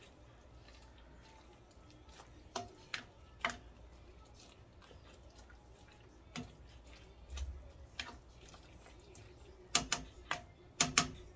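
A cooking utensil knocking and clicking against a stainless steel soup pot while greens and bones are pushed down into the broth. The knocks are scattered and sharp, with a quicker cluster of clicks near the end.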